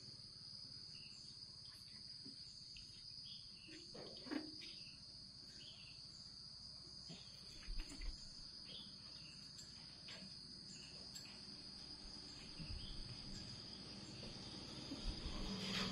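Steady high-pitched insect chirring, faint, with a few brief soft knocks about four and eight seconds in.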